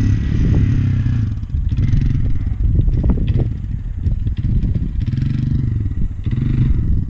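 Dirt bike engine revving up and easing off in repeated surges as the rider attempts a wheelie, with clattering knocks mixed in.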